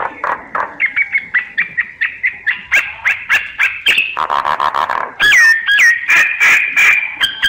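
Myna calls used as a lure recording: a rapid run of short chirps and slurred whistles, broken about four seconds in by a harsh rattling chatter, then louder looping whistles and a held whistled note.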